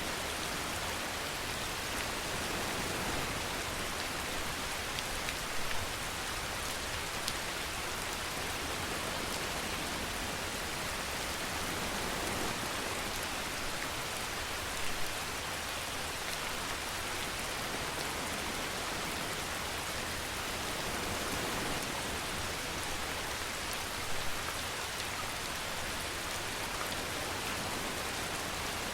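Steady rainfall, a dense even patter of rain on surfaces, with a few louder single drops standing out now and then.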